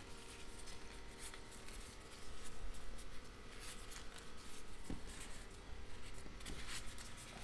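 A Sennheiser HD25 ear pad being turned inside out by hand: faint rubbing and scratching of the pad material, with a few light clicks.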